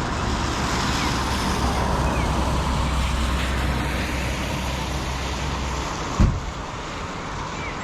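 A steady rumbling noise runs and stops, then a single heavy thud about six seconds in: a cut section of poplar hitting the ground. A few faint bird chirps come through.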